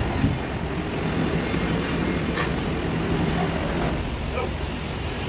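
A vehicle engine running steadily, a low rumble with a hum, with one short knock about halfway through.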